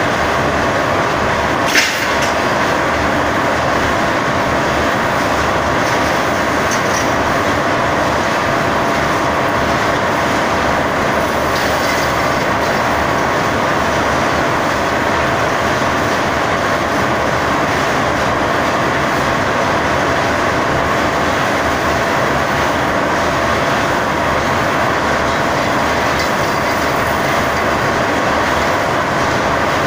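Wire-drawing machinery running with a loud, steady noise and a faint steady high tone, as wire rod is pulled off a coil. A single sharp metallic click comes about two seconds in.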